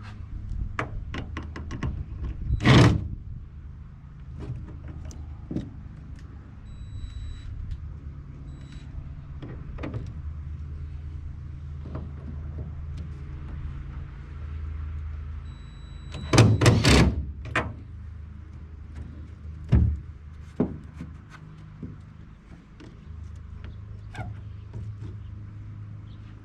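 Wrench and bolt work on an aluminum boat hull while loose transom bolts are being taken out: scattered metallic clicks and taps over a steady low hum. A few louder knocks stand out, one about three seconds in and a cluster about two-thirds of the way through.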